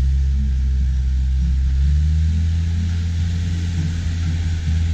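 Land Rover Discovery TD5's five-cylinder turbodiesel engine running under load at steady revs as the truck climbs a steep ramp. Its pitch steps up slightly about two seconds in.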